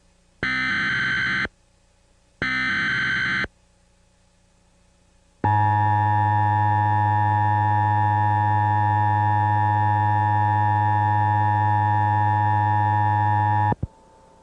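Emergency Alert System broadcast tones: two short bursts of warbling data tones of the SAME header, about a second each and a second apart, then the harsh two-tone attention signal held steadily for about eight seconds before cutting off suddenly. The tones announce an alert, here a severe thunderstorm warning.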